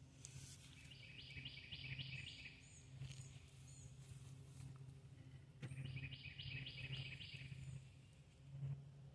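A songbird singing outdoors, two phrases of about half a dozen quickly repeated notes a few seconds apart, with short higher chirps between, over a low steady hum.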